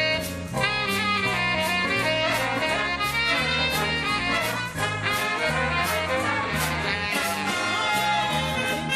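Big band playing an instrumental swing chorus, with saxophones, trumpets and trombones over bass and drums keeping a steady beat.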